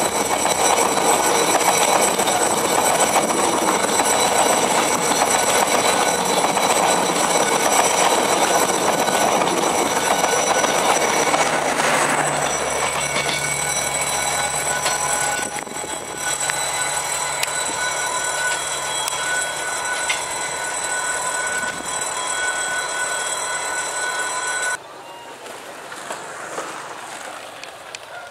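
Passenger train coaches rolling past at close range: a loud rush of wheels on rail with steady high-pitched squealing. The sound drops off suddenly near the end to a quieter rumble as a diesel locomotive approaches in the distance.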